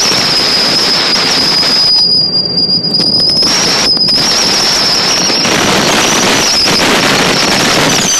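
Motorboat under way, with wind rushing over the microphone and a steady high-pitched whistle; the rush thins briefly about two seconds in.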